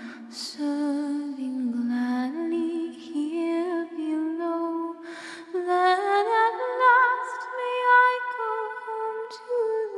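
Unaccompanied voices singing a slow hymn a cappella; the sung line climbs in pitch about halfway through.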